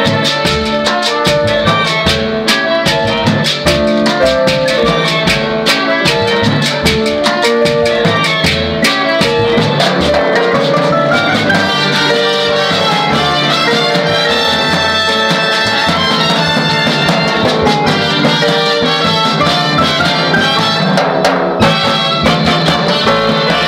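A danzonera orchestra playing a danzón live: trumpets, trombones and saxophones over electric piano, upright bass and timbales, with a steady percussion pulse.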